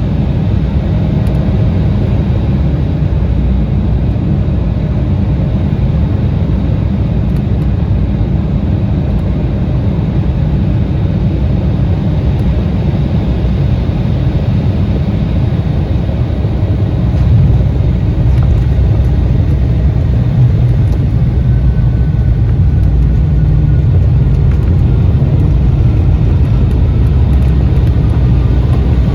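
Cabin noise inside an Embraer 175 regional jet: a steady low rumble of its engines and airflow. It gets a little louder about seventeen seconds in.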